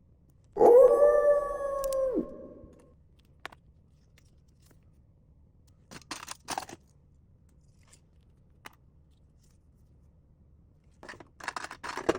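A single long, howl-like squeal that starts suddenly about half a second in, holds one pitch, and drops away after under two seconds. A few short rustles and clicks follow, around the middle and near the end.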